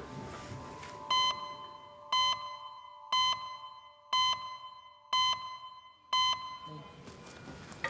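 Electronic alarm beeping: six short, even beeps about once a second over a faint steady tone.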